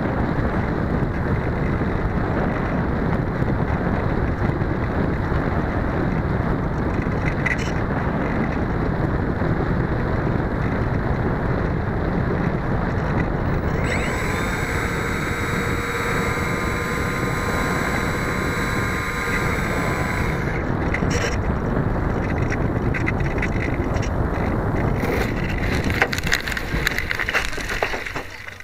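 Wind rushing over the onboard camera microphone of a small RC pusher plane in flight, with its motor and propeller running; a steady, higher whine comes in for about six seconds midway. In the last few seconds a run of scraping crackles comes as the plane touches down on grass, and the noise falls away.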